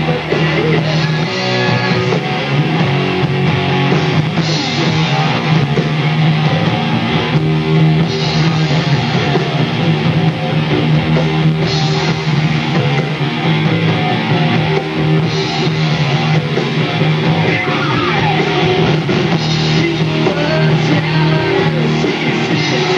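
Rock band playing live and loud: electric guitars, bass guitar and drum kit, with cymbal crashes every few seconds.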